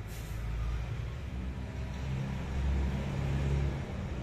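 Low mechanical rumble, with a brief hiss at the start and a hum that swells about two seconds in and eases off near the end.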